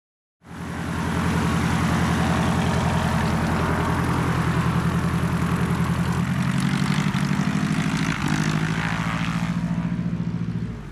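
Light single-engine propeller airplane's piston engine running steadily with a throbbing firing rhythm; about six seconds in its note drops lower.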